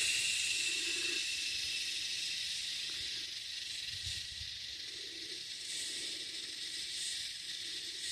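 Steady high-pitched insect chorus, a continuous hissing drone with no breaks.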